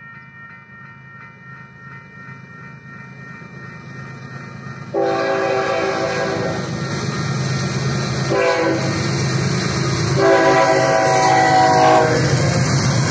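Electronic railroad crossing bells ringing, then from about five seconds in a diesel freight locomotive's air horn sounds loudly in long blasts with short breaks, over the rising rumble of the approaching train.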